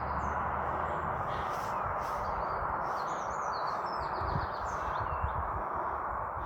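Small birds chirping in short, scattered calls over a steady rushing background noise.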